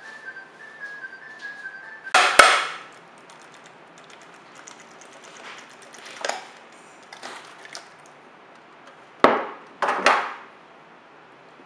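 A square stainless-steel jelly mould and a ceramic plate being handled on a wooden table, knocking and clattering as the jelly is unmolded. There is a loud clatter about two seconds in, a few softer knocks in the middle, and two sharp knocks about a second apart near the end.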